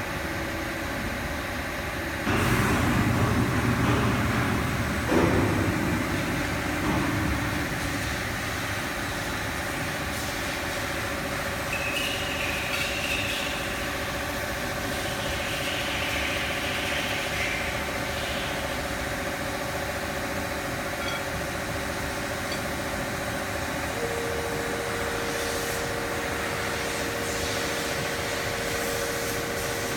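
CNC tool-grinding machine running on a test: a steady mechanical hum holding several tones, with a louder rushing noise for a few seconds near the start and a new steady tone coming in about three quarters of the way through.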